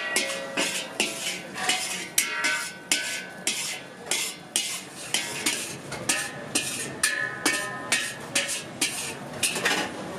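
Metal ladle scraping and clanking against a steel wok, about two to three sharp strikes a second, some leaving a brief metallic ring.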